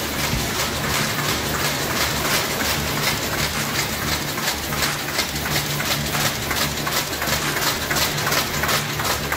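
Flowmaster mail inserter with its SF1 sheet feeder, accumulator and folder running, a fast, steady clatter of paper-handling mechanisms over a low machine hum.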